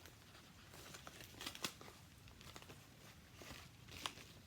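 Faint crinkling and tearing of packaging as a mailing package is opened by hand, with scattered rustles and a few sharper clicks, the clearest about a second and a half in and again near the end.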